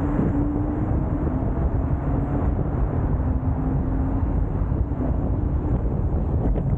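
Wind rushing over the microphone and rumble from a moving electric scooter, steady throughout, with a faint steady hum underneath.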